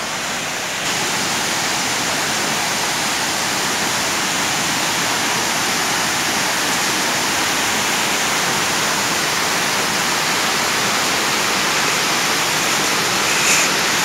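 Steady rush of flowing water, a little louder from about a second in.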